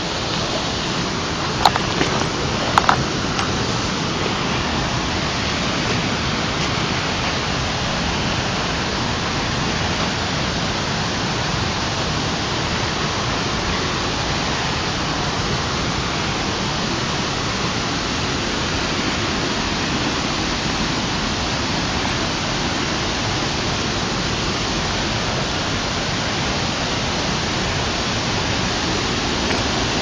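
Steady rush of rain-swollen river water pouring over a wall, with a few sharp knocks about two and three seconds in.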